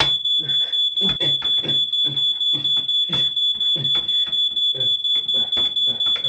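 Smoke alarm sounding one continuous high-pitched tone, with a rapid run of thuds over it, about three a second.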